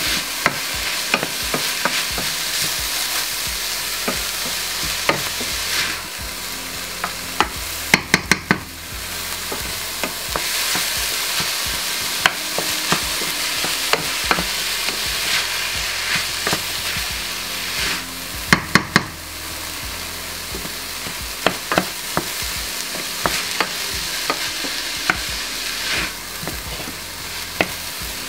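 Minced beef and onions sizzling as they brown in a stainless steel frying pan, stirred and scraped with a wooden spoon. Two quick runs of sharp knocks, the spoon striking the pan, come about a third of the way in and again about two-thirds in.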